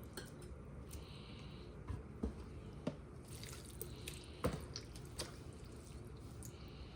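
Raw ground beef and tripe being spread by hand into a muffin tin: faint wet squishing with a few light taps, the loudest about halfway through.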